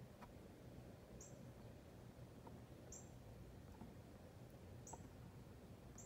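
Northern cardinal giving faint, sharp, high chip notes, one about every two seconds, over a low steady rumble.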